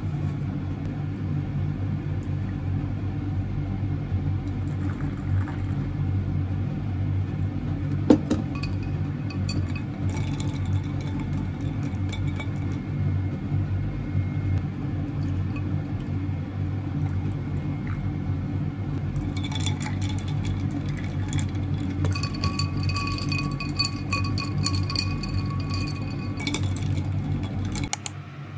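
Drinking glasses clinking on a countertop while iced lattes are being made, with one sharp clink about eight seconds in and a run of lighter clinks and ringing in the second half, over a steady low hum.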